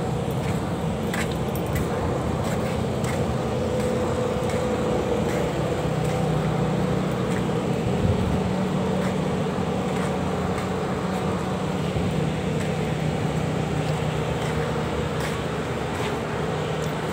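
An engine running steadily at a constant speed: a low, even hum with a fainter higher tone above it and a few light clicks.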